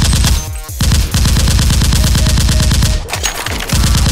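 Automatic-gunfire sound effect dubbed over a Nerf blaster: long rapid machine-gun bursts, broken by two short pauses, about half a second in and about three seconds in.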